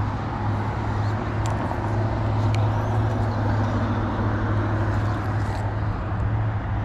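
Road traffic: a steady low engine drone with a few faint ticks.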